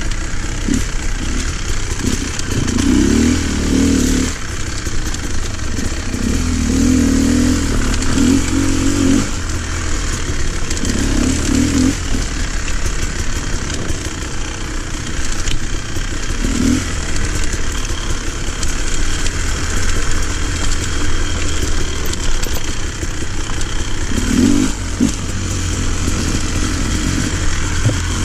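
Off-road motorcycle engine running while riding a dirt trail, the throttle opened in repeated surges and eased off between them, with rattling from the bike over the rough ground.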